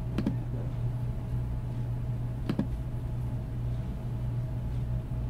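Steady low hum with two short clicks, one about a quarter second in and one about halfway through.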